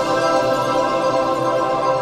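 Logo intro music: held, shimmering chords with light mallet-like notes, steady in loudness.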